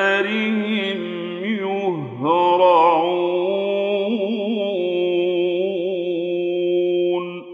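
A man reciting the Quran in the slow, melodic Egyptian mujawwad style, drawing vowels out into long wavering notes. His pitch dips about two seconds in, then he holds one long note that stops just before the end.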